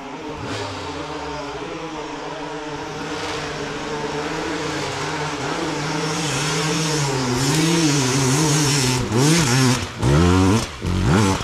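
Enduro dirt bike engine labouring up a steep slope, its pitch wavering as the throttle works and growing louder as it nears. From about nine seconds in it revs hard in short repeated throttle bursts as it climbs close by.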